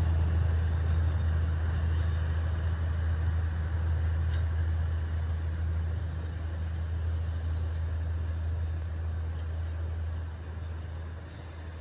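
Forest-railway cargo train's diesel locomotive running with a steady low engine drone that slowly fades as the train moves away.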